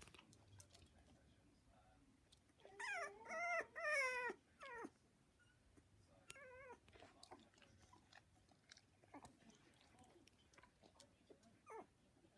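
Cocker spaniel whining: a run of high, wavering whines about three seconds in, lasting nearly two seconds, then a shorter wobbling whine a couple of seconds later. Faint small clicks and ticks sound in between.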